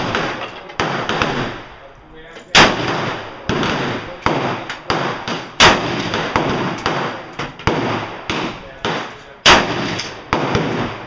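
Aimed rifle fire from a VZ-58 in 7.62x39: three loud, echoing shots roughly three seconds apart, with many quieter bangs in between.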